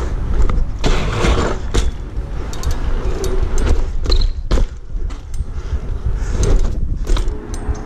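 BMX bike rolling fast over pavement: a steady low rumble of tyres and wind on the microphone, broken by many short, sharp metallic rattles and clicks from the bike's chain and parts.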